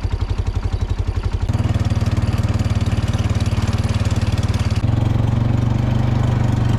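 A motor running steadily with a fast, even pulse; its tone shifts about a second and a half in and again near five seconds.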